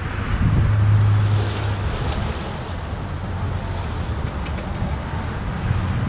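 Strong, gusty Santa Ana wind rushing through a pine tree's needles, with wind buffeting the microphone as a low rumble. A gust swells about a second in, then eases.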